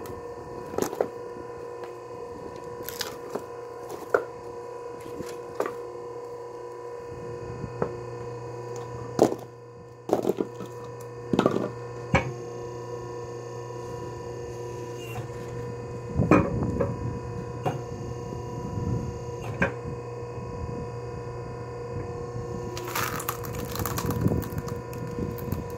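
Electric hydraulic log splitter running with a steady motor-and-pump hum, while firewood logs crack and split under the wedge, with about a dozen sharp cracks and knocks spread through.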